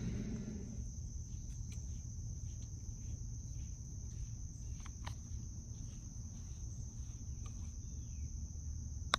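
Steady, high-pitched insect chorus over a low rumble, with a few faint ticks, and a single sharp click near the end.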